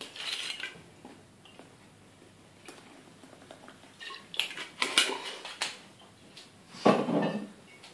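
Glass clinking and knocking: a bottle and a spoon tapping against a pint glass as absinthe is poured into a drink, a cluster of sharp clinks about halfway through. A short voice-like sound comes near the end.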